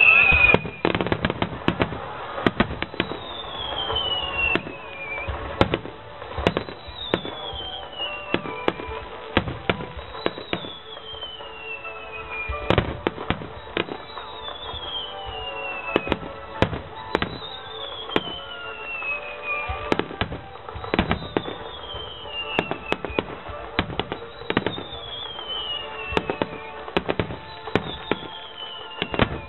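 Fireworks display: many sharp bangs and crackling bursts, with a whistle falling in pitch about every three and a half seconds.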